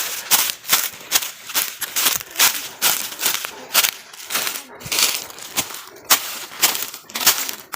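Footsteps crunching on the forest floor while hiking, about two steps a second in a steady walking rhythm.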